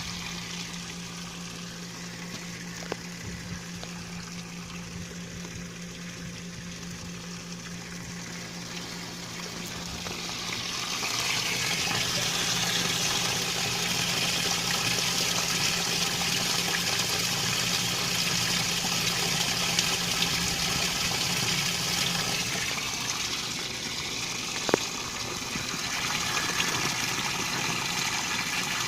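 Magic Chef Performa top-load washing machine filling with water, with a steady hum underneath. The rushing of the water grows louder about eleven seconds in, and the hum stops a little past twenty seconds.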